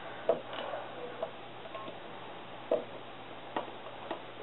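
A few light, sharp clicks and taps, four of them spread over a few seconds, as small items are handled on a bathroom counter.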